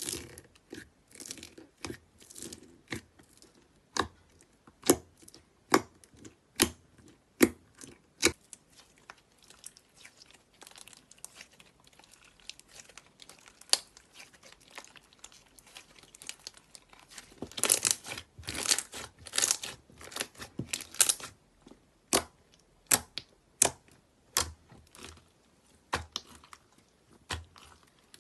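Slime being worked, giving sharp crackles and pops at irregular intervals, with a denser run of crackling about 18 to 21 seconds in.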